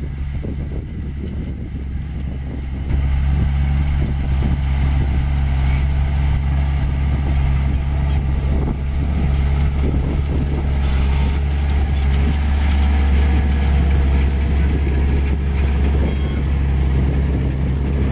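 Case IH 140 tractor's diesel engine running steadily under load while pulling a John Deere 980 field cultivator through the soil; it gets louder about three seconds in and stays there.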